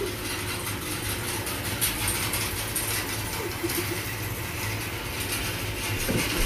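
Hay bale elevator running: a steady low mechanical hum with a continuous rattle over it.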